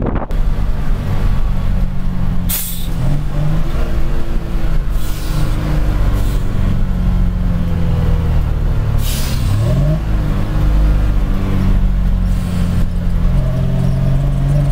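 Foden Mk 6 two-stroke diesel engine heard from inside the lorry's cab, running steadily under way. Its note drops and climbs again twice, as at gear changes. Several short hisses of air come from the truck's air system.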